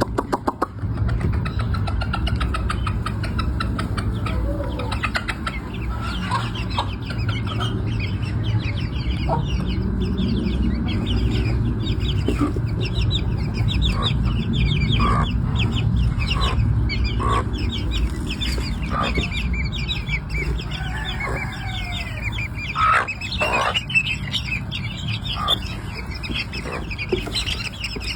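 Hen clucking now and then over a constant chorus of rapid high peeping from her chicks, with a steady low rumble underneath.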